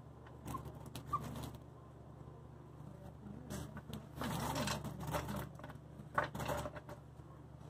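Floor jack being worked under a Chevelle's front lower control arm, raising it to compress the coil spring into its pocket without a spring compressor. There are a few clicks near the start, then several uneven bursts of mechanical clanking.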